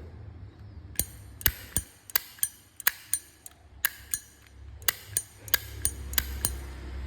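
Zippo Slim lighter being flicked: a quick series of sharp metallic clicks with a bright ring as the lid is snapped open and shut.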